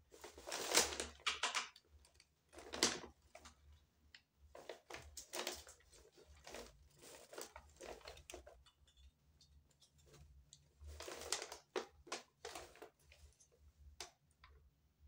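Handling noises: irregular rustles and clicks of a plastic drink cup and packaging being moved about close to the microphone, coming in several bursts, the loudest about a second in, near three seconds and again around eleven seconds.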